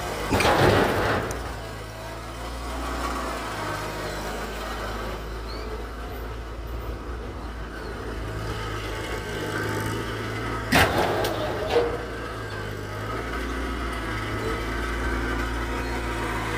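Mahindra eMax compact tractor's diesel engine running steadily while its front-loader bucket rams a stripped Dodge Charger body shell. A loud crunch of sheet metal comes about half a second in, and two sharp metal bangs about eleven and twelve seconds in.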